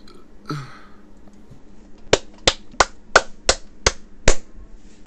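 Seven sharp clicks in quick succession, about three a second, starting about two seconds in.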